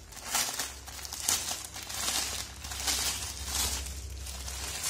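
Thin clear plastic bag crinkling and rustling in irregular bursts as hands pull a mouse pad out of it.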